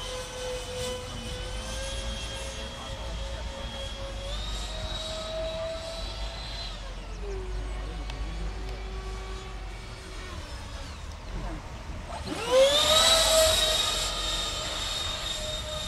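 Twin 70 mm ducted fans of an LX F-22 Raptor radio-controlled model jet whining in flight, the pitch shifting up and down with the throttle. About twelve seconds in, the whine sweeps quickly up in pitch to its loudest as the throttle is opened, then holds steady.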